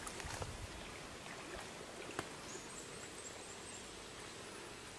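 Faint outdoor background noise at a pond, with a single sharp click about two seconds in and a thin, high, steady tone coming in about halfway through.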